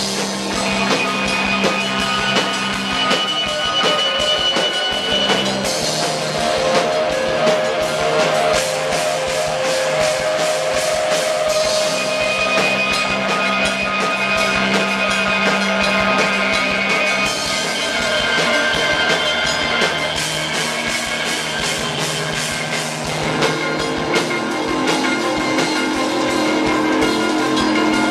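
Live rock band improvising a jam: electric guitars holding sustained notes over a drum kit with busy, steady cymbal strokes.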